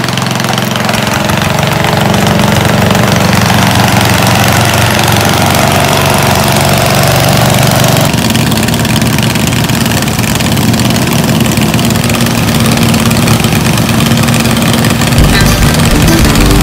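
Several riding lawn mower engines running at once, a steady small-engine drone.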